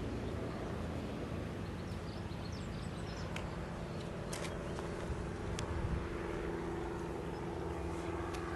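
Steady low background rumble with a few faint, light clicks scattered through it.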